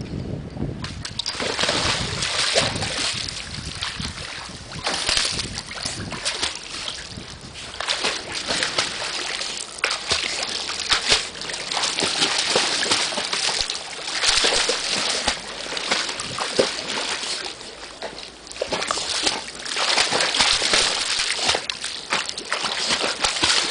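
Water splashing and sloshing as a dog jumps into a backyard pool and paddles around. It starts about a second in and comes in uneven surges of splashes.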